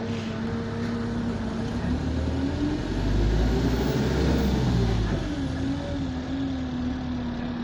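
Diesel engine of an Alexander Dennis Enviro200 single-deck bus, heard from inside the saloon as the bus pulls away: the engine note rises and grows louder, peaks about four seconds in, then drops back and settles. The uploader says this bus has a burst turbo.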